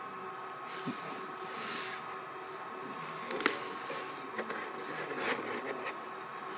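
A white cardboard gift box being packed and closed by hand: a soft rustle of the paper card, a sharp tap about three and a half seconds in, then light clicks and a rustle as the lid comes down, over a steady background hum.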